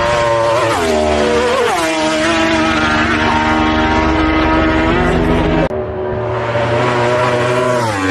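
Racing motorcycles passing flat out on the road course, the high engine note of each dropping sharply in pitch as it goes by: two in the first two seconds, then another near the end after an abrupt break.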